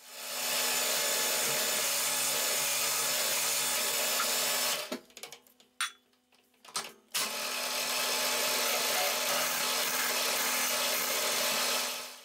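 Milling machine spindle running as twist drills cut into an aluminium block, a steady machine noise with one faint even hum underneath; the last part is a 10 mm HSS drill at 980 RPM. About five seconds in it stops for roughly two seconds, with a few sharp clicks, then starts again.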